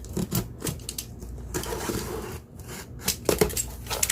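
Packaging being opened by hand: rubbing and scraping, with a few sharp clicks near the start and again about three seconds in.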